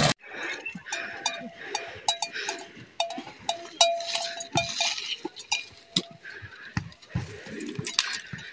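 Water buffaloes feeding in dry maize stalks and leaf litter: irregular crunching, rustling and sharp clicks. For the first few seconds a bell clinks again and again with a short ringing tone.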